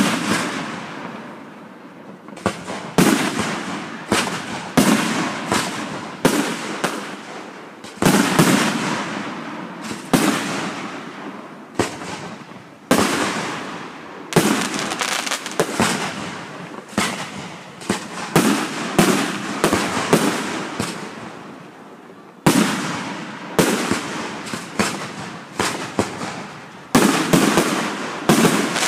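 Fireworks display: aerial shells bursting in quick succession, a sharp bang every second or so, each trailing off in an echoing rumble.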